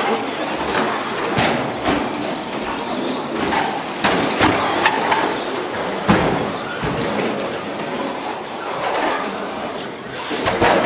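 Several 1/10-scale radio-controlled short course trucks racing, with motors whining and tyres running over the track. Frequent sharp knocks come from landings and hits.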